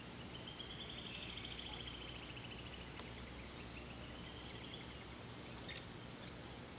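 A bird singing faintly: two rapid trilled phrases, the first sliding slightly down and the second rising, with a couple of sharp ticks, over a low steady hum.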